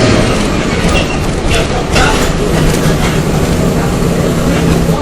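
MWM 6.12 TCAE six-cylinder turbodiesel of 206 hp in a Volksbus 17.210 EOD bus, running steadily with a low, even engine note and a few brief clicks over it.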